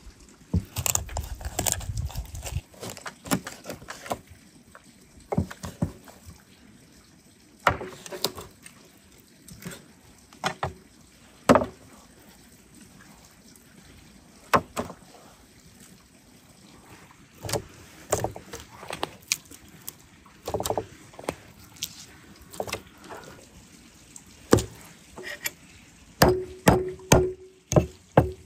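Knife and cleaver work on a large raw fish on a wooden cutting board: irregular knocks of the blade against the wood and wet handling of the fish flesh, with a quick run of sharp ringing knocks near the end.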